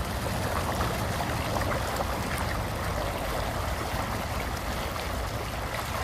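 Storm runoff rushing along a street gutter and pouring over a curb edge in a shallow cascade: a steady splashing of fast-flowing water.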